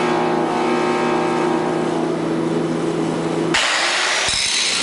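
A steady hum holding several even pitches. About three and a half seconds in it cuts off, and a hand-held disc grinder takes over, grinding down a welded seam on a cast bronze sculpture section with a loud, even hiss. This is the chasing that blends the weld joint into the surrounding surface.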